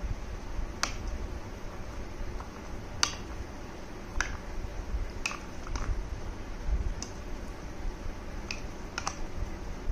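A spoon and hand knocking against a plastic jar: about eight sharp, light clicks at irregular intervals, roughly a second apart, over a low background rumble.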